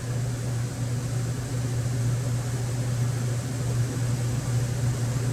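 Steady low electrical or machine hum with an even hiss over it, unchanging throughout.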